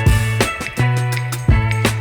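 Background music with a steady drum beat, bass line and guitar, in a funk style.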